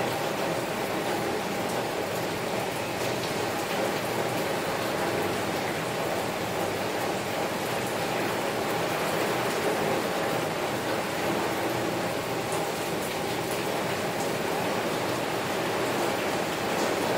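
Heavy rain falling steadily on a window: a dense, even hiss with faint scattered drop ticks.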